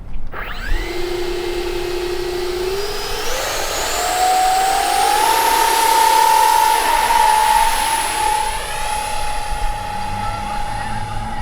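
Four 40 mm electric ducted fans on an RC YB-49 flying-wing model spooling up to a high-pitched whine. The pitch climbs in steps over the first five seconds, then holds steady at high throttle.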